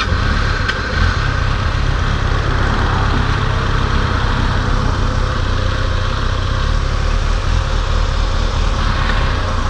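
Motorcycle engine running steadily, a constant low engine sound that neither rises nor falls.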